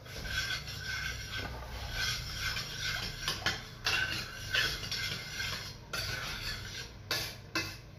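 Metal spoon stirring chocolate flan mix and milk in a stainless steel saucepan, scraping and clinking against the pan in repeated strokes about twice a second.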